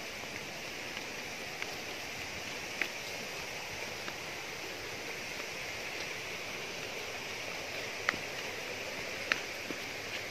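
Steady rushing of flowing stream water, with a few short sharp clicks over it.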